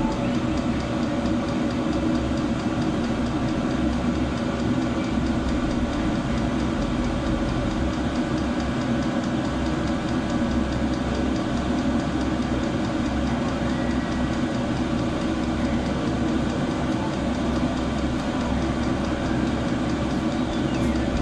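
Portable all-in-one diesel air heater running with its burner lit, the combustion and blower fan giving a steady hum and rush of air as it blows out hot air.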